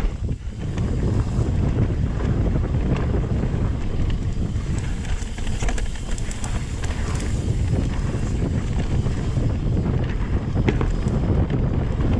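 Mountain bike rolling fast down a dirt singletrack: steady tyre rumble with scattered small clicks and rattles from stones and the bike, under heavy wind buffeting on the microphone.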